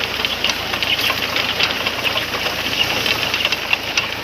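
Tractor engine running steadily under a dense, continuous rattling clatter of many small ticks, typical of a tractor-drawn potato harvester at work.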